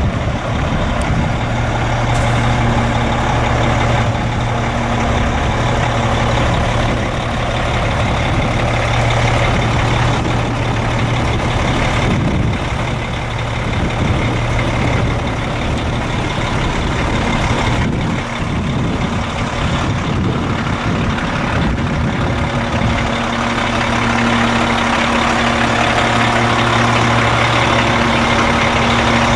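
Caterpillar C13 12.5-litre inline-six turbo diesel of a Sterling A9500 rollback truck running steadily, with a constant low hum.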